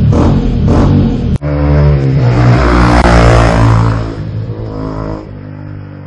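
Background music with a steady beat cuts off sharply about a second and a half in. It gives way to a Yamaha WR125R's single-cylinder four-stroke engine, breathing through a MIVV Stronger steel exhaust, revving hard as the bike accelerates away. The engine note stays loud for a couple of seconds, then fades with distance.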